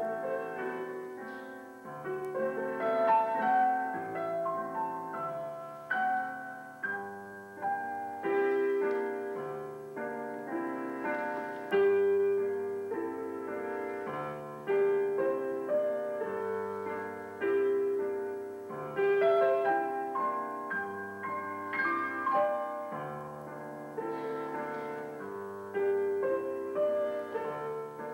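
Solo piano playing a slow, melodic piece, its notes left to ring over a low bass line.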